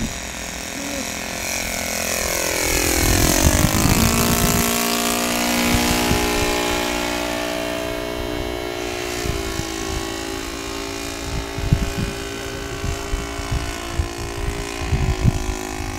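Four-stroke gas engine of a scale model Curtiss JN-4 Jenny biplane in flight. Its pitch falls sharply as it passes close by about three seconds in, then it drones on steadily as it flies away.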